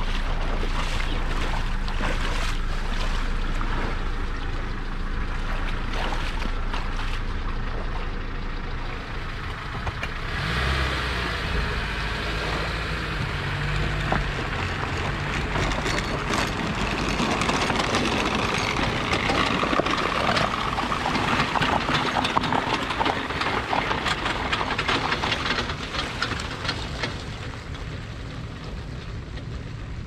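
Boat engine running steadily under a broad rushing noise, with the boat under way.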